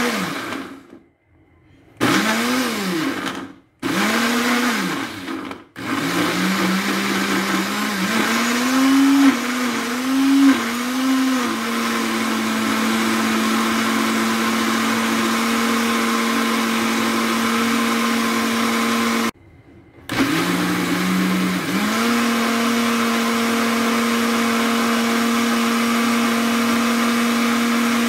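Electric blender puréeing apple chunks. It is pulsed in three short bursts, then run continuously, and the motor's pitch dips and recovers while the blades catch the chunks, then holds steady as the mix turns smooth. It stops for about a second about two-thirds of the way through, then runs on.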